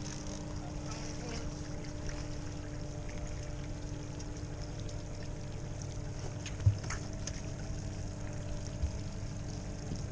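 A boat motor running steadily at slow trolling speed: a constant low hum. There is a single knock a little past halfway through.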